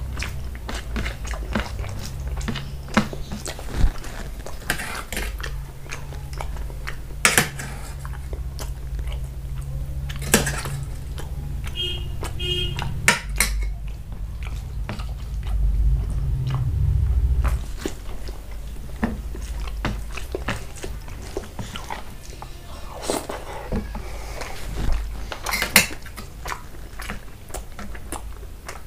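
Close-miked chewing and mouth sounds of a person eating rice and mutton curry by hand, with many short wet clicks and smacks, over a low steady hum.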